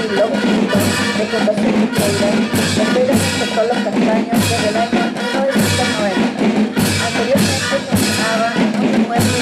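School marching percussion band playing a steady march: bass drums and snare drums keeping the beat, with crash cymbals struck together on a regular pulse a little under twice a second.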